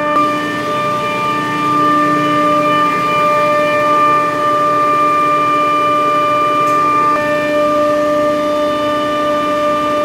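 Old Trane water-cooled chiller's compressor running loudly, a steady whine of several held pitches over machine noise, with a small change in tone about seven seconds in. This is the excessive compressor noise the school complained of, on a chiller running with a high condensing temperature and a large pressure drop across the condenser barrel, which the technician puts down to a plugged condenser water pump strainer.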